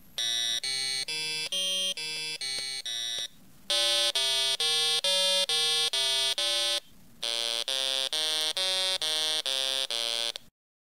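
A homemade Z80 computer plays a short run of electronic notes through its DAC, about three notes a second, buzzy and rich in overtones. The run is played three times with brief pauses between, generated in turn as a triangle, a sawtooth and a square wave. It stops abruptly near the end.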